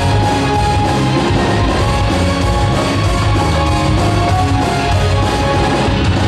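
Loud rock music with guitar and drums, playing steadily.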